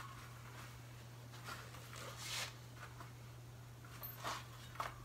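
Faint rubbing and scuffing of an old, dry-rotted bicycle tire being worked off its steel rim by hand, in a few soft swishes over a steady low hum.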